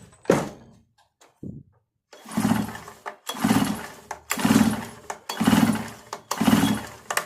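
Recoil starter on a 63 cc two-stroke mini tiller engine, pulled five times about once a second, each pull a short whirr as the rope spins the flywheel; the engine does not catch. A single knock comes just before the pulls begin.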